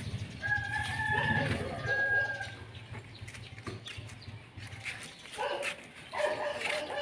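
Rooster crowing in several held calls: a high one near the start, a short one about two seconds in, and a longer, lower one from about five seconds in. A low steady hum runs underneath for the first five seconds.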